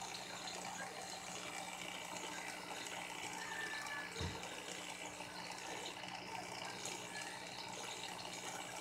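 Aquarium filter or pump running: steady running-water noise with a constant hum underneath. A single low thump about four seconds in.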